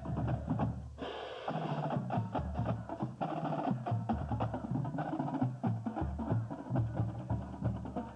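Marching band drumline playing a street cadence as it marches: a rapid, even rhythm of snare drum strikes over pitched bass drum beats.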